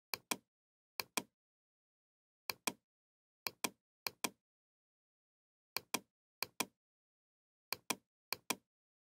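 Computer mouse clicking, each click a quick pair of snaps (button press and release), nine times at irregular intervals with dead silence between.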